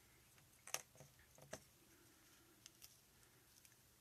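A few light taps and clicks from plastic drinking-straw pieces being handled and set down on a desk, the sharpest about a second in and a fainter pair near the end.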